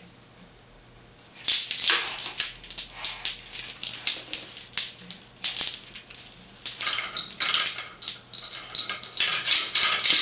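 A baby's excited high-pitched squeals and shrieks, in many short bursts, starting about a second and a half in.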